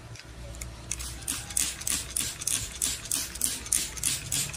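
Water sprayed onto the car windscreen from a trigger spray bottle, squeezed quickly in a run of short spritzes at about four a second. The glass is being wetted for wet sanding.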